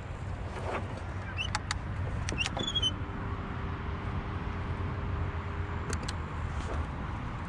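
Fishing reel being wound in, a steady whir lasting about three seconds in the middle, over a low rumble of wind and water. A few sharp clicks and short high chirps come before it.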